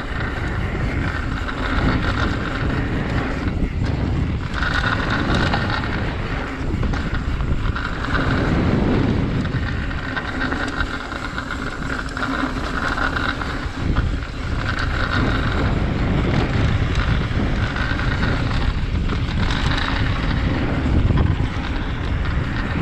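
Mountain bike ridden along a dirt trail, heard from a GoPro: wind rushing over the microphone on top of the steady rumble and rattle of tyres and bike over rough ground, with a sharper knock about fourteen seconds in.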